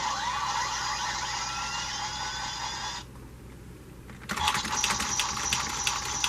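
Electronic Kamen Rider transformation-belt sound effects with a tinny, thin sound. First a stretch with sliding electronic tones, then a short pause, then a rapid run of clicks over a high steady tone.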